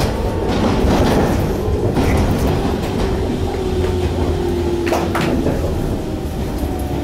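Electric train slowing into a station, heard from inside the car: a steady running rumble with a tone that glides slowly down as it brakes, and one sharp click about five seconds in.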